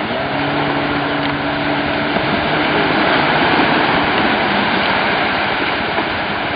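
Waves breaking on the beach as a steady rushing wash, with a low steady hum for the first two seconds or so.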